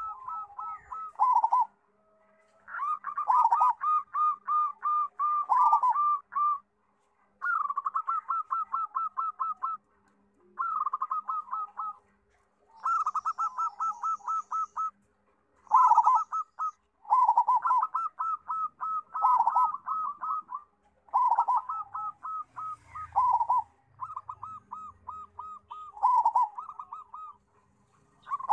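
Zebra dove (perkutut) cooing: phrases of quick staccato coos, each lasting one to three seconds, repeated over and over with short pauses between.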